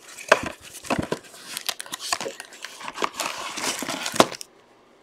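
Trading card packs being handled and opened: crinkling of wrappers with scattered sharp clicks and taps, stopping about half a second before the end.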